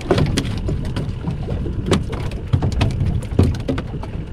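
Water slapping and splashing against a small boat's hull, with irregular sharp ticks and wind rumbling on the microphone.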